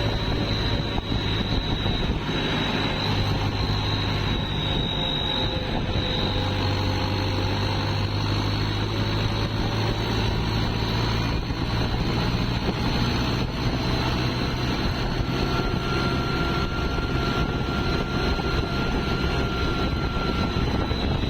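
Tractor diesel engine running with a steady high whistle from a fitted aftermarket turbo whistle, a cheap add-on that imitates a turbocharger's spool sound.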